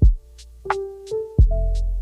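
Background music with a programmed beat: deep kick drums, short hi-hat ticks about twice a second, and held keyboard notes.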